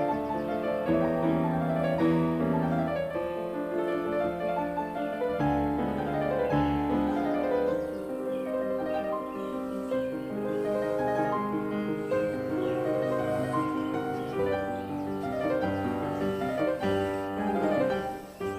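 Background piano music, a melody over chords, fading out at the end.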